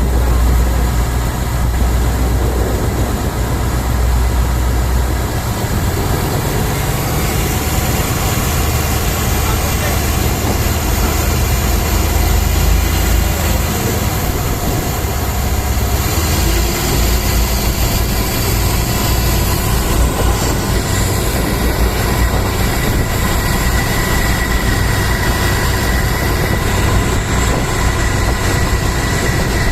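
Motor ship's engine running steadily with a deep drone, under a constant rush of wind and sea noise.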